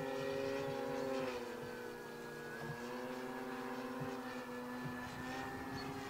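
Electric motors and propellers of two Flex Innovations RV8 radio-control planes in flight, a steady hum at more than one pitch. The pitch drops a little over a second in and climbs back about a second later as the throttle is changed.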